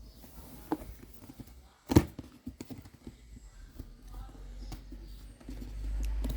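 Handling noise from a large cardboard box being moved about: scattered knocks and taps, with one sharp knock about two seconds in, then a low rumble from about five and a half seconds in.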